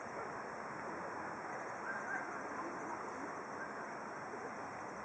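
Steady outdoor riverside ambient noise, an even hiss with no distinct engine or voice, with a faint short high sound about two seconds in.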